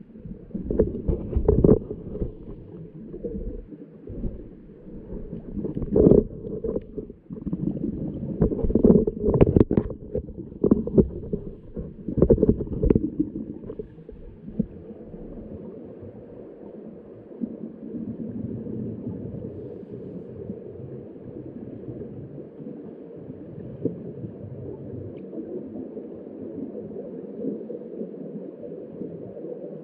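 Scuba divers' breathing heard underwater through a camera housing: muffled gurgling surges of exhaled regulator bubbles come irregularly through the first half, then settle into a steady low rumble.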